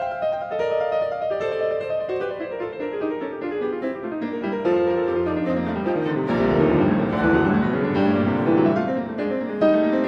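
Classical piano music with quick runs of notes, growing fuller and a little louder with deeper notes from about halfway through.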